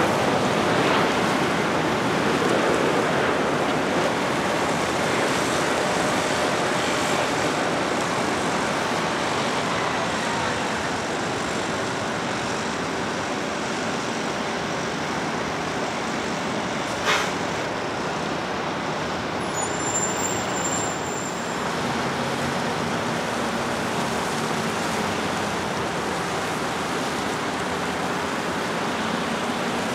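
Steady roar of airliner jet engines with road traffic beneath, loudest at the start as an Airbus A330neo passes on final approach and easing off as a Boeing 787 taxis. A single sharp click a little past halfway.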